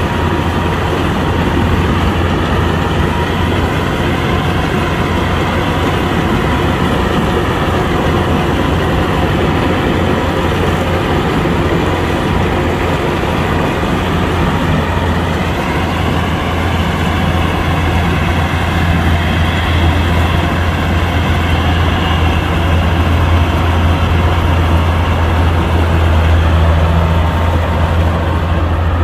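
Kubota combine harvester's diesel engine running steadily with a deep hum.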